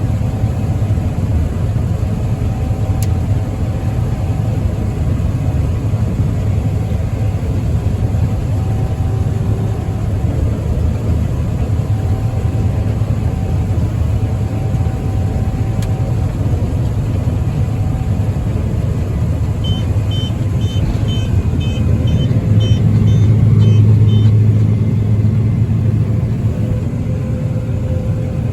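Combine harvester running steadily while harvesting soybeans, a continuous low rumble. About twenty seconds in, a quick run of about ten high electronic beeps sounds for some five seconds while the rumble swells briefly.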